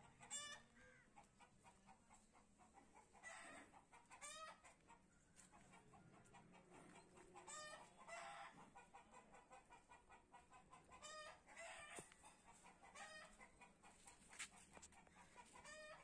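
Faint chickens clucking in the background: about seven short calls, a few seconds apart, over a quiet yard.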